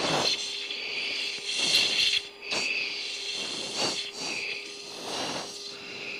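Sharp, hissing breaths through an oxygen-mask microphone on an F-16's intercom, coming about every second and a half over a steady cockpit hum. They are the quick, forced breaths of the anti-G straining manoeuvre during a hard turn.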